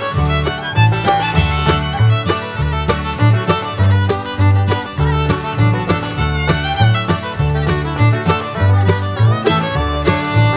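Lively instrumental music: a fiddle over a steady, even bass beat.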